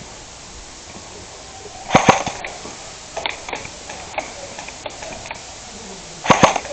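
Sharp clicks and knocks over a faint steady background: two loud knocks about two seconds in, scattered lighter clicks through the middle, and a quick cluster of loud knocks near the end.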